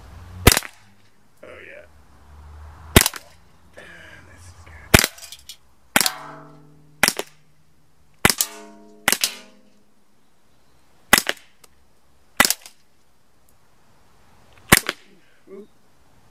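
Sig Sauer P365 CO2 blowback BB pistol firing about ten sharp shots, one every one to two seconds, emptying the magazine. Twice, about six and nine seconds in, a hit can rings on briefly after the shot.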